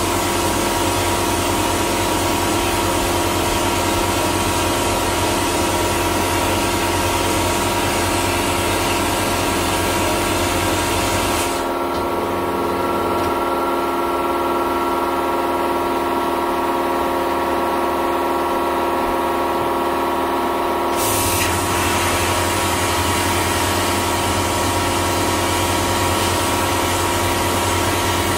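Vapor blasting gun with a 3D-printed plastic nozzle spraying a water and glass-bead slurry with compressed air onto a metal part, a steady hiss over a steady machine hum. The blast cuts off about a third of the way in, leaving only the hum for about nine seconds, then starts again.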